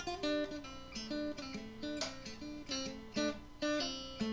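Intro music on an acoustic guitar: single notes plucked one after another in a short melody, each left ringing.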